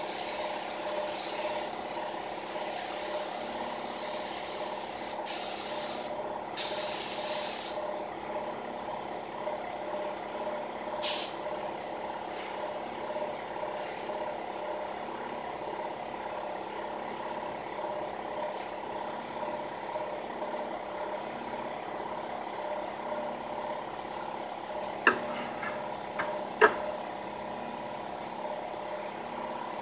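Gravity-feed paint spray gun spraying clear coat in short hisses of air, the two loudest and longest about five to eight seconds in and a brief one near eleven seconds, over a steady mechanical hum. Two sharp knocks near the end.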